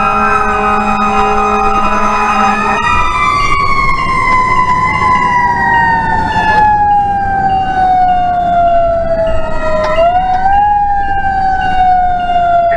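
Fire truck siren sounding on an emergency run, loud from the truck itself: a steady pitch for about the first three seconds, then a slow fall in pitch, a brief rise again about ten seconds in, and a further slow fall.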